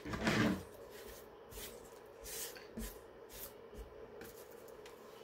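Brief rubbing noise in the first half-second, then faint scattered rustles and light handling sounds over a faint steady hum.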